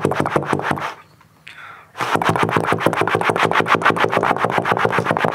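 Trombone played in rapid, evenly chopped pulses to imitate a helicopter's rotor: a short burst in the first second, then after a brief pause a longer run of pulses from about two seconds in.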